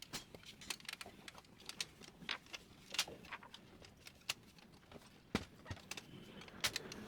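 Irregular light clicks, taps and knocks of printer parts being handled and fitted by hand, with a few sharper knocks about three, five and a half and near seven seconds in.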